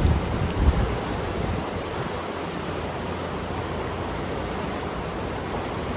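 River water rushing steadily, an even hiss of flowing water. Some uneven low rumbling, typical of wind on the microphone, in the first second and a half.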